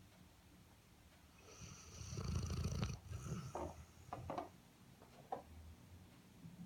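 Airedale terrier snoring in its sleep: a long, loud snore about two seconds in, followed by a few shorter, higher-pitched breathing sounds.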